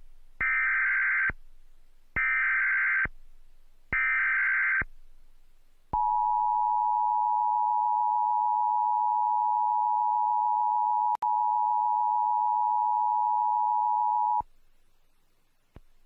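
Emergency Alert System activation for a tornado warning: three short, equal bursts of the SAME digital header data chirp about two seconds apart. Then the EAS two-tone attention signal sounds steadily for about eight seconds, broken by a click about eleven seconds in.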